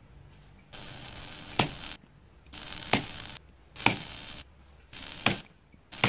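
Desoldering pump sucking molten solder from a circuit board's through-hole pins: four hissing bursts of suction, each roughly half a second to a second and a half long and each with a sharp click, with short pauses between them.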